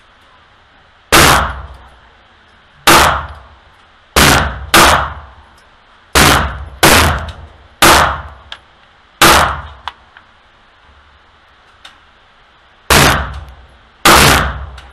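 Sig Sauer P365 pistol fired about ten times at an uneven pace. Each shot is a sharp bang with a ringing echo from the indoor range, and there is a pause of several seconds before the last two shots.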